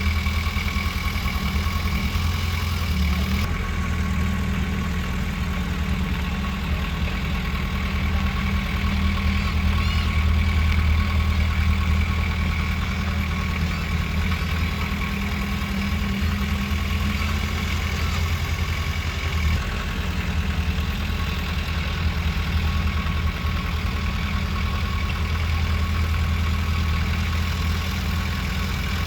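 Heavy diesel engine of earthmoving machinery running steadily, a deep engine note with a thin steady whine above it. The low note shifts slightly about three seconds in and again near twenty seconds.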